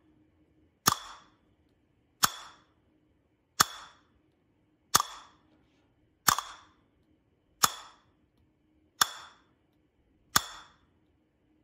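Castanet 'ta' strokes on the lower-pitched male castanet: the middle and ring fingers strike the two shells together in the middle, giving a sharp click with a short ring. Eight evenly spaced strokes, about one every second and a half.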